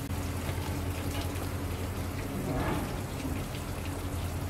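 Steady low machinery drone from construction work under a constant hiss like running water.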